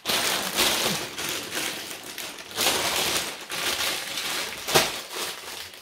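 Plastic bags of LEGO pieces crinkling and rustling as they are picked up and sorted through by hand, with one sharp, louder crackle a little under five seconds in.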